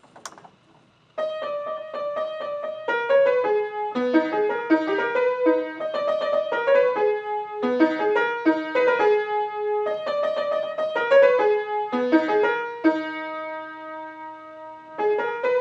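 Keyboard played with a piano sound: a tune of quick single notes over lower notes, starting about a second in and ending on a held chord near the end.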